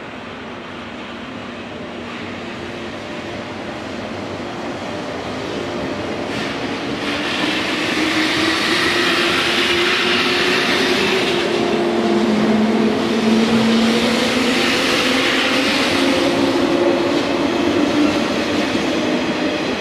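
Electric passenger train running along a station platform, its motor hum and wheel and rail noise growing louder, with a hum that rises slightly in pitch.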